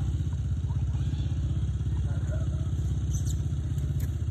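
Small dirt bike engine running steadily, a low, even rumble with no revving.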